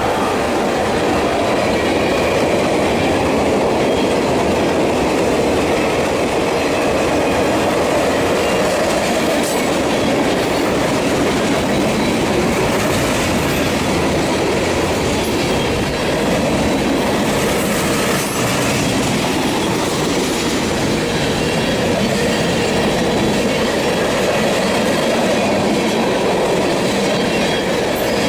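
Norfolk Southern freight train rolling past at close range: a steady, loud clatter of steel wheels on rail that goes on without a break.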